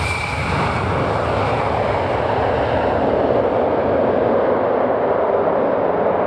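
Tupolev Tu-154M's three rear-mounted Soloviev D-30KU turbofans running as the jet rolls away along the runway. A steady jet roar grows slightly louder, and a high turbine whine fades out in the first second or so.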